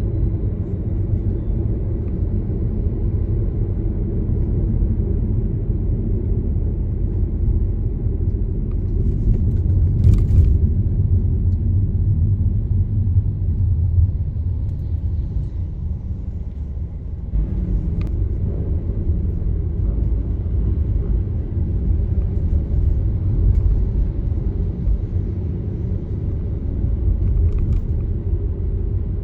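Car driving at a steady pace: a continuous low rumble of road and engine noise, with a brief faint click about ten seconds in.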